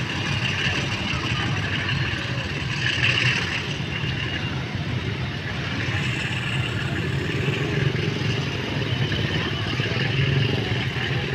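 Diesel locomotive engine running under power as it hauls a train of oil tank wagons away, a steady low drone.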